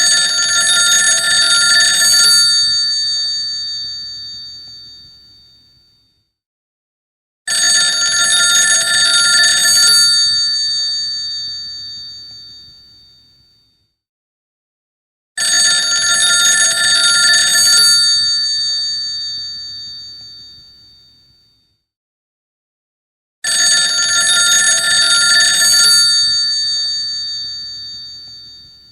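Vintage rotary telephone's bells ringing four times, about eight seconds apart: each ring is a rapid jangle lasting about two and a half seconds, then the bells die away.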